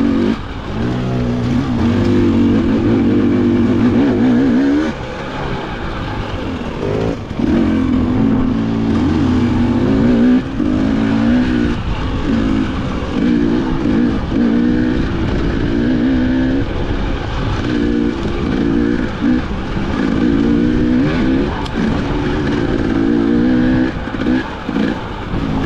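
KTM 300 XC two-stroke dirt bike engine, ridden on a trail, revving up and falling back again and again as the throttle is worked, with a few brief drops where the throttle is shut.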